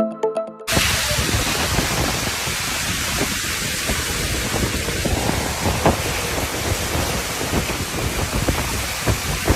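A short synth music intro cuts off under a second in, then steady noise of storm wind and heavy rain, with gusts buffeting the microphone.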